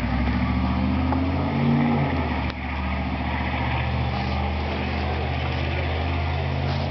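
An engine running steadily with a low, even hum that shifts slightly in pitch a couple of seconds in.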